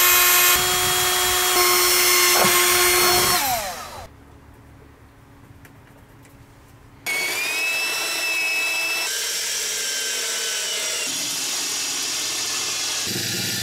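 WORX 20V cordless drill driving screws into a water fill hatch flange, running at speed and then winding down about three and a half seconds in. After a pause of about three seconds, a corded electric drill starts and runs steadily with a high whine to the end.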